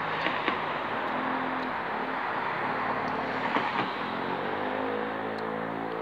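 Road traffic passing as a steady wash of tyre and engine noise. A vehicle's engine hum comes through partway in and rises slightly in pitch.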